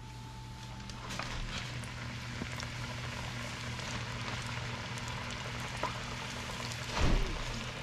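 Flour-dredged bass fillets frying in smoking-hot grease in a cast-iron skillet: a steady sizzle that grows a little about a second in as another piece goes in. There is a brief thump about seven seconds in.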